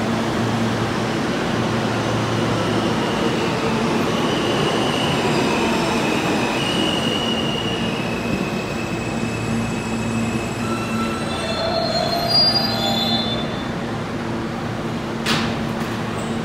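R160 subway train pulling into the station and braking, with a steady low hum under high wheel and brake squeals that come and go. A short sharp burst near the end as it stops and its doors open.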